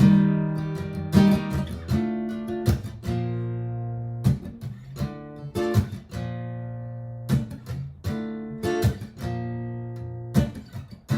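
Martin GPCPA4 acoustic guitar strumming chords, each stroke left to ring, in a steady instrumental passage.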